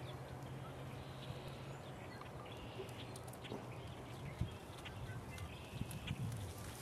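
Faint outdoor ambience: scattered short bird calls over a steady low hum.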